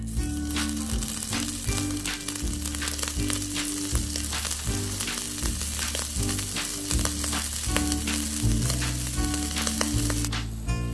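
Beef roll frying in hot oil in a tiny pan: a dense, crackling sizzle that starts as the meat goes in and dies away near the end, with background music underneath.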